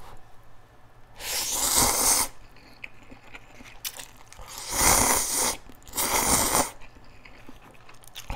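A person slurping instant cup ramen noodles three times, each a rushing, airy slurp of about a second, with faint chewing between.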